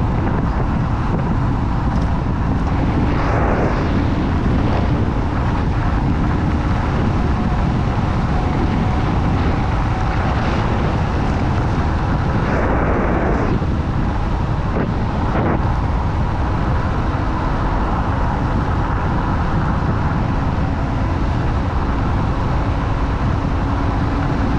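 Wind rushing over the handlebar-mounted microphone, mixed with tyre and road noise, as a Kaabo Wolf King GT electric scooter is ridden at high speed. The rush holds steady, with brief louder swells about three seconds in and again around thirteen seconds.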